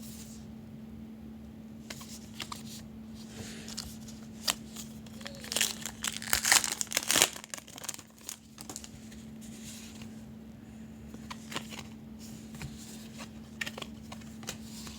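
A trading-card pack's wrapper crinkling and tearing open, loudest for about two seconds in the middle, with small clicks and rustles of cards being handled, over a steady low hum.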